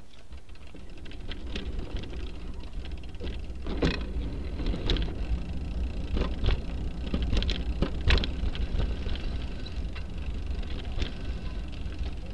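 A bicycle being ridden over cracked pavement, heard from a camera on its rear rack: a steady low rumble of wind on the microphone and tyre noise, with scattered clicks and rattles from the rack and bag over bumps, the sharpest about four and eight seconds in.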